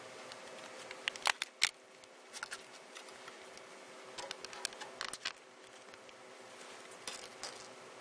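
Clear plastic clamshell packaging of an Intel Xeon processor clicking and crackling as it is handled and opened, in several short clusters of sharp clicks.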